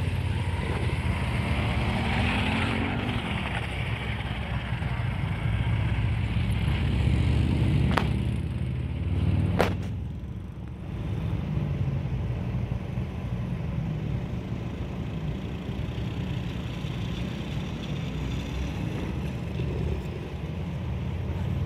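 Electric motor of an Axial Yeti Score RC trophy truck whining faintly, rising and falling in pitch as it is driven across dirt, over a steady low rumble of wind on the microphone. Two sharp clicks come in the middle.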